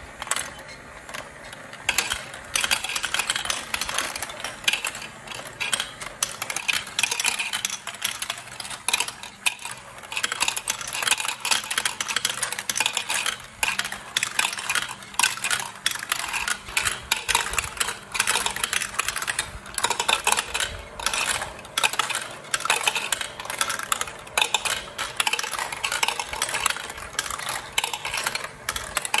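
Plastic marbles rolling and clattering down plastic building-block marble run chutes, funnels and spiral lifts: a constant stream of rapid clicks and rattles. The battery-powered spiral lift towers run with a low steady hum beneath.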